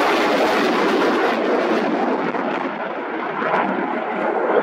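Eurofighter Typhoon fighter jet flying past with its twin Eurojet EJ200 turbofans, a loud steady jet noise that eases a little midway as the jet banks away, then swells again near the end.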